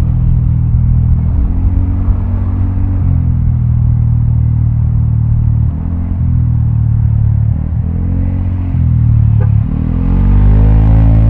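Vespa automatic scooter's single-cylinder engine running through a Prospeed Black CNC aftermarket exhaust while riding, its note rising and falling several times as the throttle is opened and eased off. About ten seconds in the throttle opens up and the exhaust gets louder.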